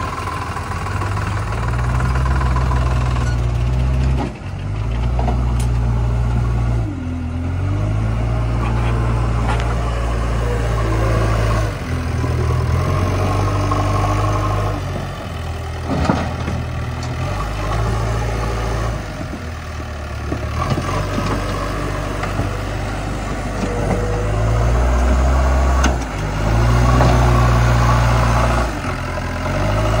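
Diesel engine of a JCB 3DX backhoe loader revving up and falling back again and again as it digs and lifts soil with its front bucket, over a tractor's diesel engine running. A sharp thud near the middle as a bucketful of soil is dumped into the tractor's trailer.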